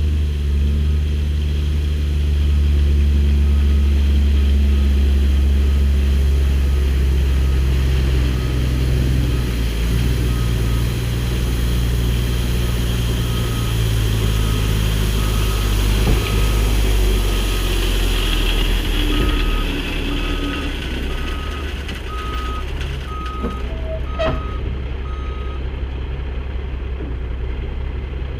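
Dump truck's diesel engine running, with its backup alarm beeping about once a second for a stretch in the middle while it reverses.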